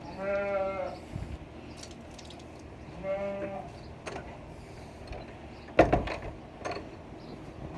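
Sheep bleating twice, each bleat under a second long and about three seconds apart. A single sharp knock comes near the end.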